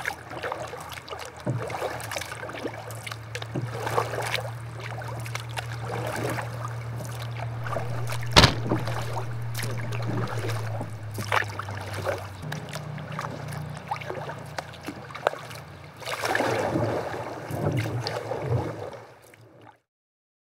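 Kayak paddles dipping and splashing in calm river water in irregular strokes, over a steady low hum, with one sharp knock about eight seconds in. The sound cuts off shortly before the end.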